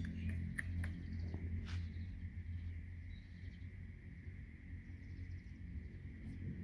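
Puppies wrestling and scuffling at play, with one short high squeak about two seconds in, over a steady low rumble.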